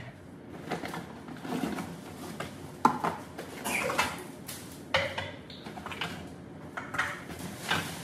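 Kitchen dishes and utensils clattering, with irregular clinks and knocks and a sharper knock about three seconds in.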